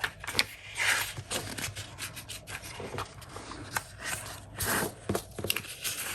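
Paper and craft supplies being handled and sorted on a work surface: sheets sliding and rubbing against each other, with irregular light taps and clicks.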